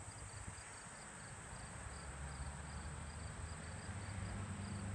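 Crickets chirping faintly, a steady run of short high chirps about three a second, over a low rumble that grows a little louder near the end.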